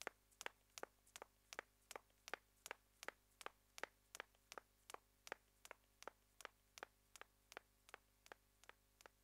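Faint clock-like ticking, even and regular at about two and a half ticks a second, slowly fading near the end.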